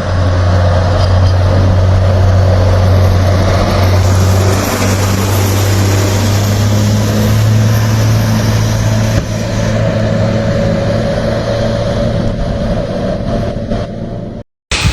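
A motor vehicle's engine running steadily at a constant low pitch, with a rushing noise over it. It cuts off suddenly near the end.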